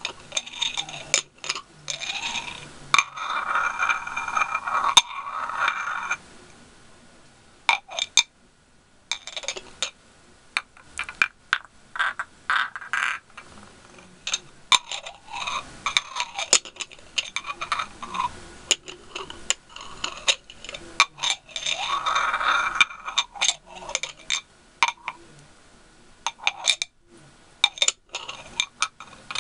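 Fingernails tapping and scratching on ribbed glass candle jars: quick, irregular taps with a couple of longer scraping stretches along the ribs.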